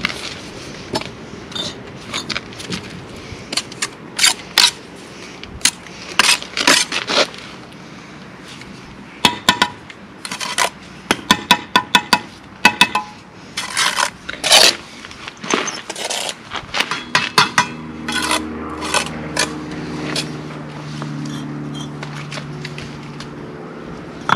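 Steel trowel knocking, tapping and scraping on bricks and mortar while laying a brick wall: sharp clicks and knocks in irregular bursts, with a fast run of taps around the middle. In the last third a steady low hum joins in for a few seconds.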